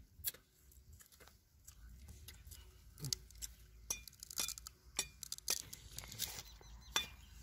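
Sugarcane being bitten, chewed and cut with a large knife: irregular sharp cracks and crunches, coming thickest in the middle.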